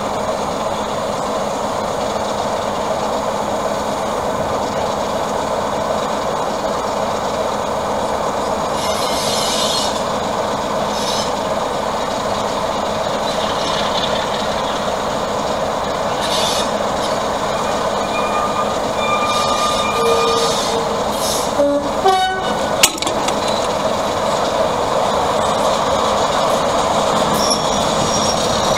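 Diesel locomotive engines running, with a 'Peak' diesel locomotive approaching slowly and growing louder toward the end. A brief horn blast sounds a little over two-thirds through, followed by a few sharp knocks.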